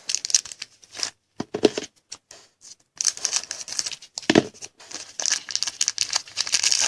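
Foil trading-card pack wrapper crinkling and tearing as it is handled and opened, in short bursts at first and more steadily from about three seconds in.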